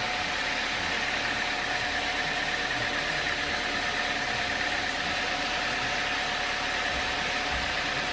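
Sawmill machinery running steadily, a motor or engine with a constant whine and no change in load.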